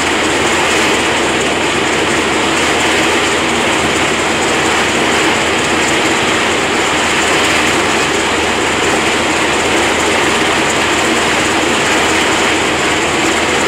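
Sikorsky SH-60F Seahawk helicopter running on deck, its twin turboshaft engines and turning main rotor making a loud, steady noise.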